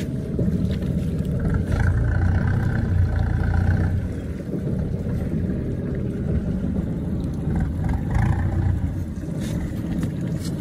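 Steady low rumble of a small boat's engine running.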